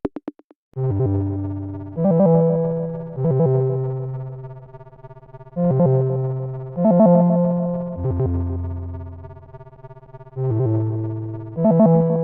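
A stock Cubot X6 phone tone: a synthesized electric-piano melody that starts about a second in, chords struck one after another and left to fade between strikes.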